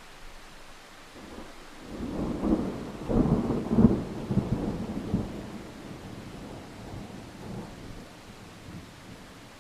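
A peal of thunder over steady rain: the rumble builds about two seconds in, cracks loudest around four seconds, then rolls off and fades, leaving the rain hiss.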